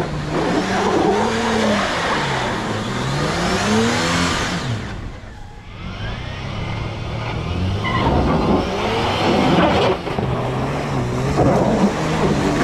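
Four-wheel-drive engine revving under load, its revs rising and falling several times as the vehicle works through off-road terrain, easing off briefly about five seconds in.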